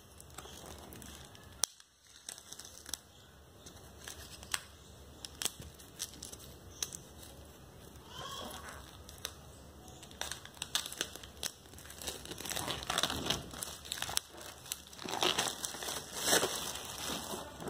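Clear plastic shrink-wrap on a paperback book being slit with a folding knife and then peeled off by hand, crinkling and crackling in scattered clicks. It grows denser and louder in the second half as the wrap is pulled away.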